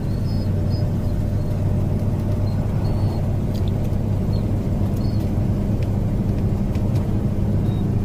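Steady drive-by noise of a car on the move, heard from inside the cabin: a constant low engine and road hum with tyre noise.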